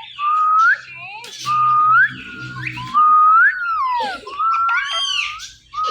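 Indian ringneck parrot whistling: a run of about four short rising whistles, then a louder arched whistle near the end.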